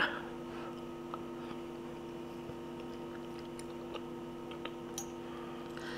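Quiet chewing of a tender cooked carrot, with a few faint mouth clicks over a steady low hum.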